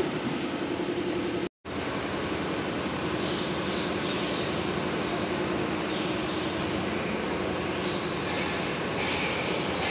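Bus diesel engine idling steadily, a low even rumble with a rapid fine pulse. It cuts out for an instant about one and a half seconds in.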